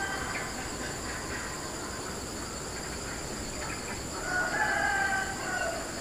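A rooster crows once about four seconds in, a long held call that falls away at the end, over a steady high insect buzz.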